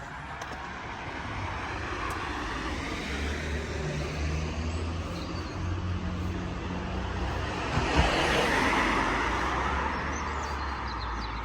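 Steady motor-vehicle road noise: a low engine rumble with road hiss, swelling for a couple of seconds about eight seconds in.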